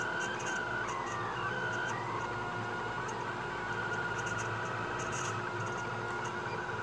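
Delta 3D printer's stepper motors whining as the print head moves. The tones glide up and down for the first couple of seconds, then hold steadier pitches, over a steady hiss.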